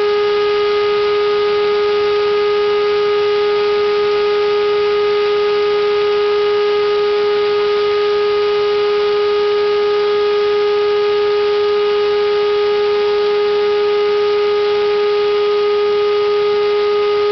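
Router spindle motor on a home-made CNC router running steadily with a constant high-pitched whine over a hiss.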